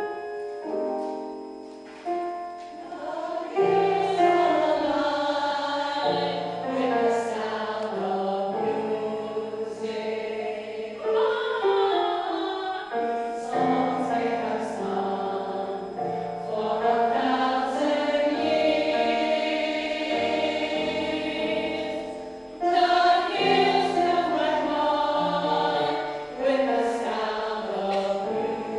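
A choir singing a song in several parts, sustained chords moving from note to note.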